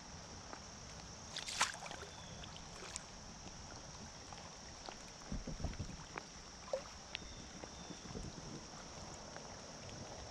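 Water rushing and lapping against an Intex inflatable kayak drifting down a fast, high creek. A steady hiss runs throughout, with scattered light ticks, a brief louder splashy burst about one and a half seconds in, and a few low thumps around the middle.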